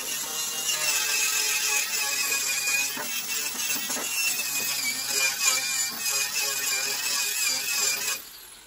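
Electric angle grinder running under load against a steel mower deck, scouring off rust and grime, its whine wavering as it is pressed on. The sound cuts off near the end.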